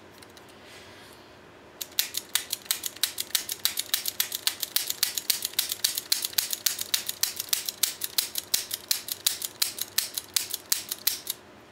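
Revolver dry-fired over and over with spent .22 rimfire cases in the chambers as snap caps: a fast run of sharp metallic clicks from the action and the hammer falling, about five a second. It starts about two seconds in and stops just before the end.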